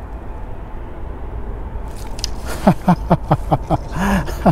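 Steady wind noise, then about two and a half seconds in a rapid run of pitched buzzes that fall or swell and sink in pitch, several a second: a fly reel's click drag giving line in surges as a hooked carp runs.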